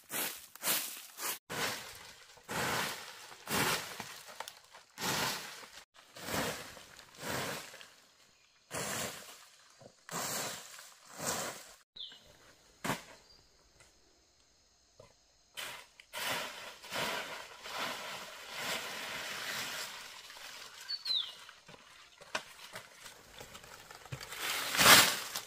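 Hand-tool scraping in a run of strokes, roughly one a second, pausing briefly around the middle, with the loudest stroke near the end. A bird chirps briefly twice.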